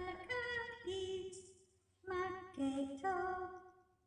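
A woman singing unaccompanied: slow held notes in two short phrases, with a brief pause about two seconds in.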